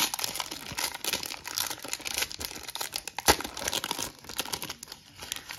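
Plastic wrapper of a Panini Prizm football card pack crinkling and tearing as it is pulled open by hand, with one sharp crack a little past halfway, the loudest moment.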